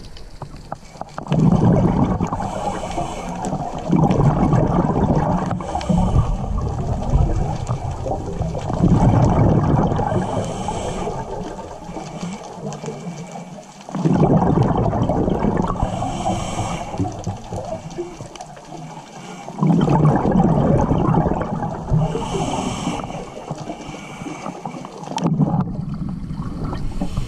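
Scuba diver breathing through an open-circuit regulator, heard underwater: a short hiss on each inhale, then a long burst of rumbling exhaust bubbles, about every five to six seconds.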